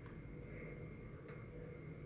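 Quiet room tone: a steady low hum and a faint high whine, with a faint click at the start and another about a second and a quarter in.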